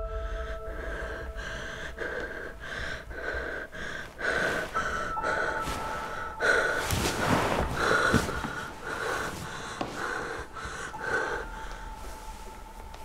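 A young woman breathing hard in a run of quick, repeated gasps.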